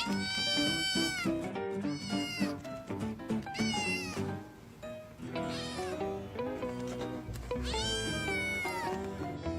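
A cat meowing about five times, the first and last meows long and drawn out, over background music.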